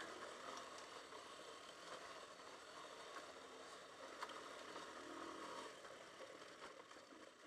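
Faint, muffled riding noise of a Hartford VR150 motorcycle on a rough gravel track: a steady hiss with a few light knocks and clatters from the bike going over the stones.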